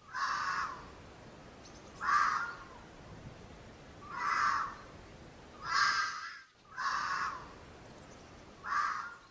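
Red fox calling: six short, harsh barks, roughly one every second and a half.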